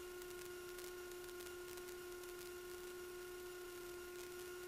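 Faint, steady electrical hum on the aircraft's headset intercom feed, with a few fainter high steady tones and light static; the engine itself is not heard.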